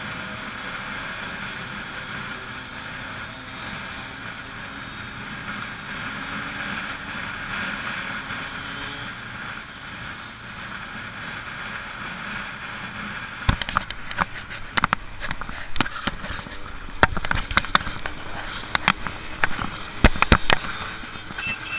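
Riding sound from a camera on a Kawasaki Z750: the inline-four engine running under steady wind noise. From about two-thirds of the way in come many sharp clicks and knocks, as from something handling or knocking the camera, and a short beep near the end.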